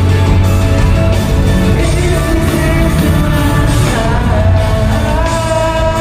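Loud live rock music: a band playing with a singer holding long notes, one sliding to a higher pitch about four seconds in.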